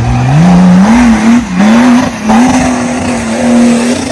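Off-road vehicle engine revving hard under load, its pitch climbing over the first second and then rising and falling with the throttle, over a steady rush of tyre and terrain noise. The level dips briefly twice in the middle.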